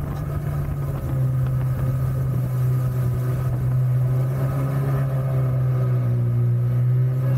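Mini jet boat's engine and jet drive running steadily at cruising speed, heard from on board, a little louder from about a second in.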